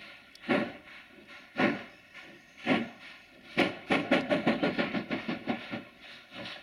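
JS class 2-8-2 steam locomotive working hard to start a heavy coal train: slow, loud exhaust beats about a second apart. About halfway through, the beats suddenly come in a rapid flurry for about two seconds and then die away, the sound of the driving wheels slipping before steam is shut off.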